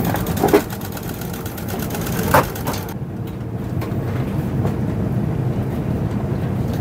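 Steady low hum of an airliner cabin's air-conditioning and ventilation, with a short knock about two and a half seconds in.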